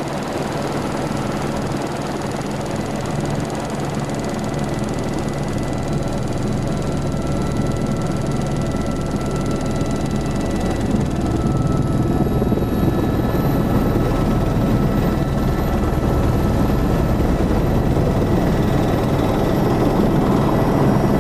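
Helicopter engine and rotor running steadily, growing gradually louder, with a thin high whine that rises slightly in pitch about halfway through.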